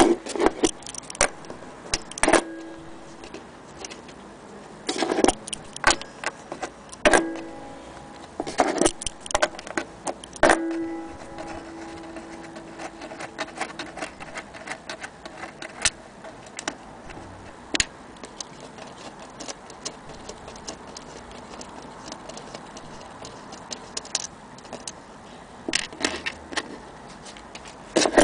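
Metal hardware being handled on the back of a wooden clock case: irregular clicks and clinks of nuts, bolts and washers, a few of them followed by a short ringing tone.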